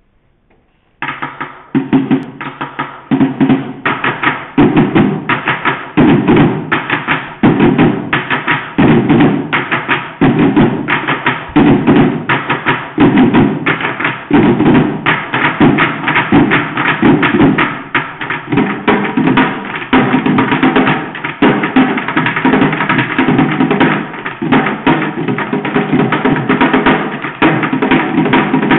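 Bucket drumming: sticks beating a fast, driving rhythm on buckets, starting suddenly about a second in and running on as a dense, even pattern of strokes.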